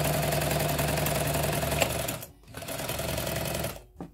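Jones M949 sewing machine stitching at a steady speed, stopping briefly a little past two seconds in, then running again for about a second before it stops. A single click near the end.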